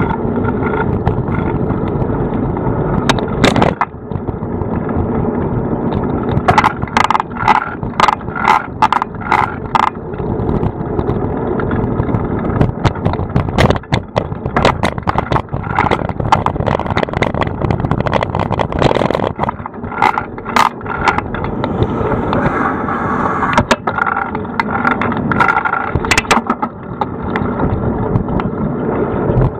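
Bicycle ride heard from a camera mounted on the bike: a steady rumble of tyres on the road and air over the microphone, with sharp clatters and knocks as the bike and mount jolt over bumps, a quick run of them about seven to ten seconds in.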